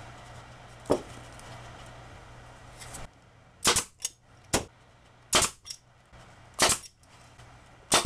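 Pneumatic stapler driving staples into cedar boards: five sharp shots about a second apart, a couple followed by a lighter click. A single knock sounds about a second in.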